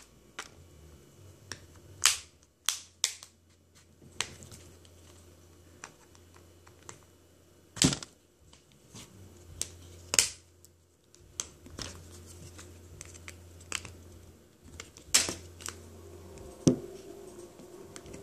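OnePlus One's back cover being pried off with a plastic protractor run around its edge: a handful of sharp, irregularly spaced clicks and snaps as the cover's clips let go, with softer ticks and scrapes between.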